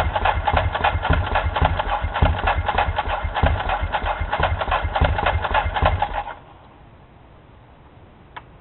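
Ducati 999 L-twin engine turning over on its electric starter in rapid, even pulses without catching, a sign that it won't start. The cranking cuts off suddenly about six seconds in, and a single short click follows near the end.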